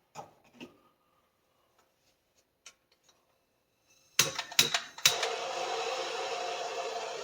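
A few light taps and clicks, then about four seconds in three sharp clicks of a propane torch's igniter, and the torch catches and burns with a steady hiss, ready to heat a copper joint for sweating.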